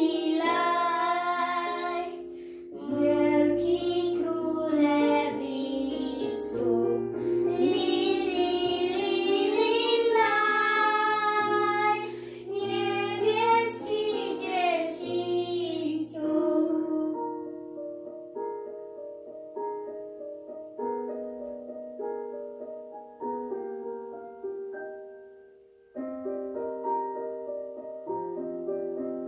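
A girl and a woman singing a Polish Christmas carol together over piano accompaniment. About sixteen seconds in the voices stop and the piano plays on alone.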